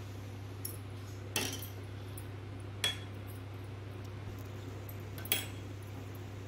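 Steel spoon clinking against a stainless steel plate and chutney bowl: four light clinks spread out, one with a brief ring, over a steady low hum.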